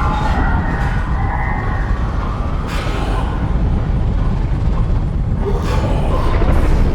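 Science-fiction sound effect of a bio-mechanical alien spaceship: a deep, continuous rumble with wavering, siren-like wailing tones in the first second or two and sudden swells twice later on.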